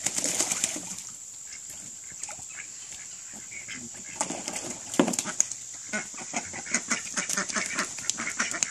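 Khaki Campbell ducks splashing and scuffling in a shallow plastic wading pool, with soft quacking and clucking calls among the splashes. The splashing is busiest at the start and again from about four seconds in, with one sharper slap about five seconds in.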